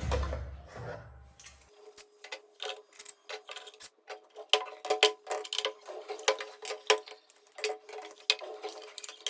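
Quick, irregular light taps or knocks on wood, several a second, beginning about two seconds in after a short low rumble.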